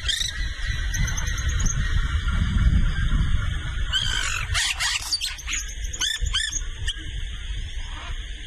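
Yellow-rumped caciques calling in a colony: a jumble of varied short notes, including gliding whistles, quick repeated high notes and sharp clicking strokes, densest about four to six and a half seconds in, over a steady low rumble.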